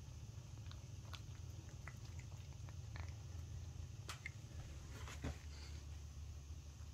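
Cat chewing and biting at a piece of chicken breast held out by hand: faint, scattered small clicks from teeth and mouth, over a low steady hum.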